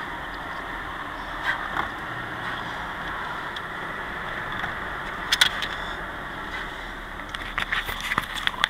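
Steady road and engine noise inside a moving car's cabin, with a sharp click about five seconds in and a run of small clicks near the end.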